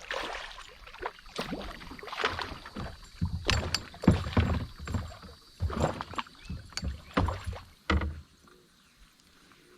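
Irregular splashing and thrashing of water as a freshly hooked bass fights at the surface and is landed, in a run of uneven bursts that stops about eight seconds in.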